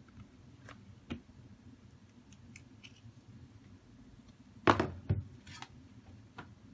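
Handling noise at a repair bench: a few faint clicks, then a brief, loud clatter of small hard objects about two-thirds of the way through, over a low room hum.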